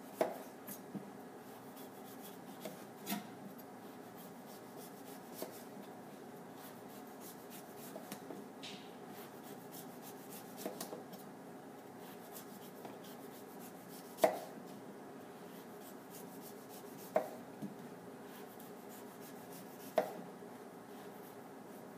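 Kitchen knife slicing the thick skin off a celery root: quiet cutting, with a sharp knock of the blade against the board every few seconds, the loudest three in the second half.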